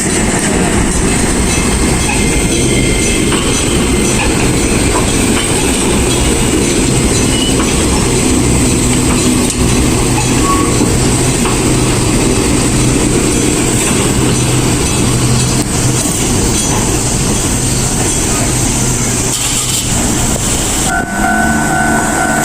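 Enoden electric train running on the track, a loud steady rumble of wheels with clacking over the rail joints. Near the end a steady pitched tone starts.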